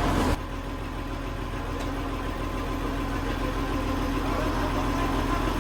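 Industrial machinery in a rice mill boiler plant running steadily: a low rumble with a faint steady whine. It drops suddenly in level just after the start, then slowly grows louder.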